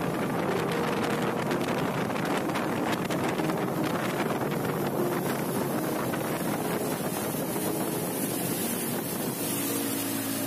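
Small motorboat underway at speed: a steady engine drone mixed with the rush of water against the hull, with wind buffeting the microphone.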